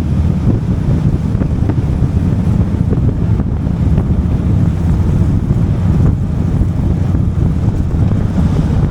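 Heavy wind buffeting on the microphone from riding at road speed: a steady, loud low rumble.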